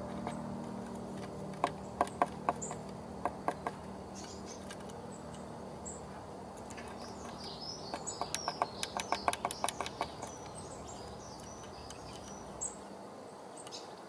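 Blue tit pecking at the wooden entrance hole of a nest box: a series of sharp taps, a handful spaced out at first, then a quicker run of several taps a second about eight seconds in. Small birds chirp high in the background during the quicker run.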